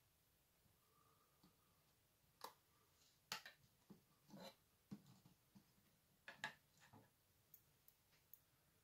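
Near silence broken by a dozen or so faint, scattered clicks and taps.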